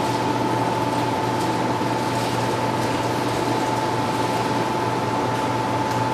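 Steady mechanical hum and hiss like a ventilation fan, with a constant high tone running through it and no gunshots.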